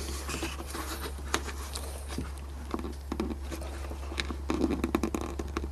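Scattered light clicks and scrapes of fingers working the plastic front indicator bulb holder behind a Nissan Note headlight, trying to twist it anti-clockwise, with a quicker run of clicks near the end.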